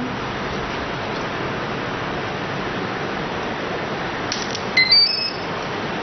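Steady hiss. A little after four seconds in, a couple of clicks, then a quick run of short electronic beeps at several pitches: a multirotor's brushless motor ESC playing its power-up tones through the motor after the flight battery is connected.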